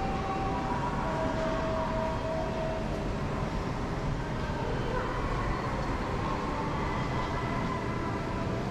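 Steady background noise of a busy station hall, a constant low rumble with faint, indistinct voices.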